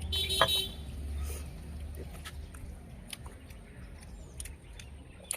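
Eating at the table: scattered small clicks and taps over a low hum, with a short high-pitched squeal about half a second in.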